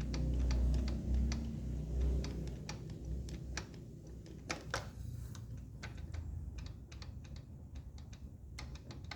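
Honda XR150 single-cylinder engine turned back and forth by hand at the crankshaft, its loose piston knocking in the bore as a string of light, irregular clicks and knocks. This is piston slap, which the mechanic puts down to a piston and rings worn after the engine ran without oil.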